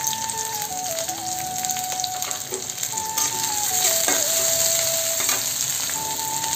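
Chopped onions and green chillies sizzling steadily in hot soybean oil in an iron kadai. A spatula scrapes and stirs them, with a few knocks against the pan in the second half.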